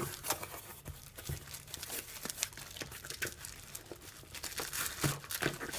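Packaging being handled and opened by hand: an irregular run of crinkling and tearing crackles.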